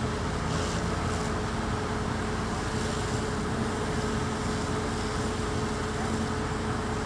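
Fire engine's motor running steadily, a constant hum over an even rumble and hiss.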